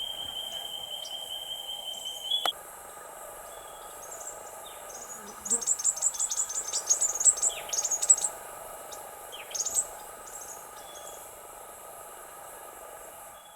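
Small birds calling in dry bushland: a rapid run of high, thin chirps in the middle and a shorter call a little later. Before that, a steady high-pitched whine cuts off suddenly with a click about two and a half seconds in.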